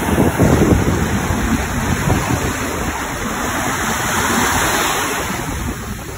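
Ocean surf washing on a beach, with wind buffeting the microphone. The wash swells about four seconds in and eases off near the end.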